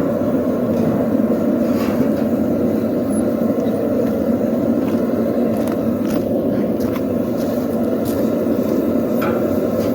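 Steady roar of a blacksmith's forge running, with a few faint metallic clinks over it.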